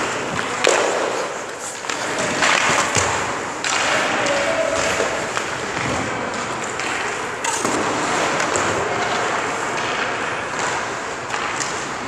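Ice hockey skates scraping and carving on the ice, with a few sharp knocks of stick and puck. The loudest knock comes about a second in.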